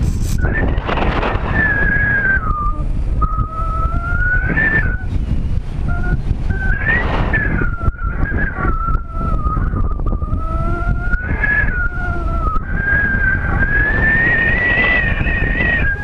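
Airflow rushing over a camera riding on a Bird of Time sailplane in unpowered gliding flight, with a high whistle from the passing air that wanders slowly up and down in pitch. Several louder swells of rushing air come and go, about a second, five, seven, eleven and fifteen seconds in.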